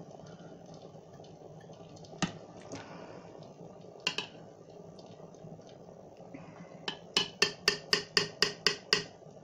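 Metal slotted spoon clinking against a stainless steel pot: a couple of single knocks, then a quick run of about ten taps in two seconds near the end.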